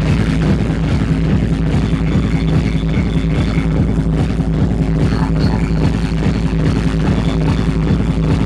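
Techno playing loud over a dance venue's sound system, with a heavy, constant bass and a driving beat at an even level.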